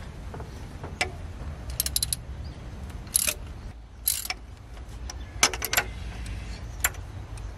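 Hand ratchet wrench clicking in several short runs as a bolt on the front of the engine is turned, with sharp metal clicks and clinks of the tool.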